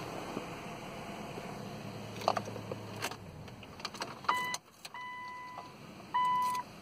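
A steady low hum dies away about three seconds in, after a couple of clicks. Then the 2013 Subaru Outback's electronic warning chime sounds three times as a steady tone, short, long, then short and loudest: the key-in-ignition reminder chime.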